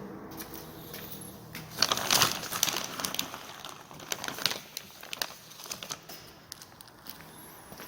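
Crinkling and rustling with scattered clicks, loudest in a burst about two seconds in.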